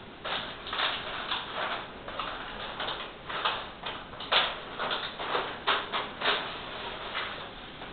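Irregular clicks and crackles of a flexible whiteboard sheet being handled and pressed against the wall, several a second, the loudest about four and a half seconds in.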